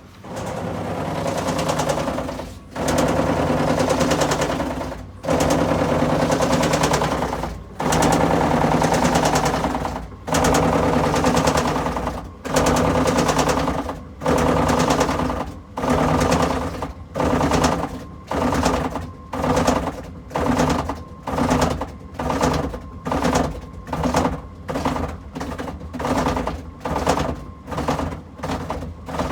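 Washing machine giving off a loud rapid rattling clatter, like construction work, in bursts that stop and start. The bursts grow shorter and closer together as it goes, from a few seconds each to under a second. It is the abnormal noise of a machine that has suddenly broken.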